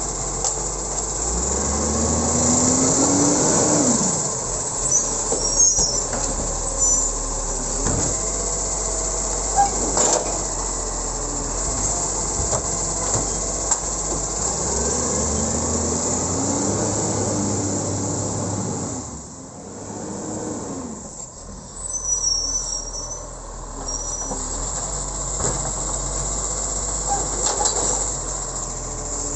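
Iveco side-loader garbage truck working, its engine running and its hydraulic lifting arm emptying wheelie bins: rising whines as the engine and hydraulics work up, with knocks and clanks of bins being tipped and set down.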